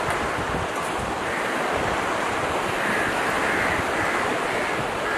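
Steady rushing noise of wind blowing on the microphone together with water washing at a river shore.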